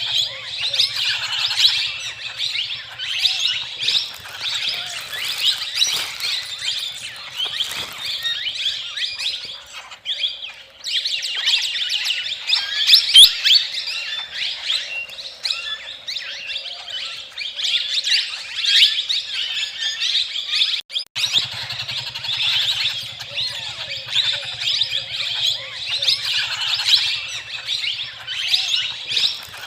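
A flock of small birds chirping, a dense, continuous chatter of many overlapping short high chirps that briefly breaks off twice.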